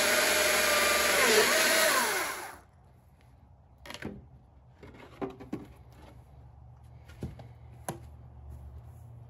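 Electric chainsaw cutting a log with a steady high whine, then winding down and stopping about two and a half seconds in, with no idle. A few light knocks and clicks follow as the saw and wood are handled.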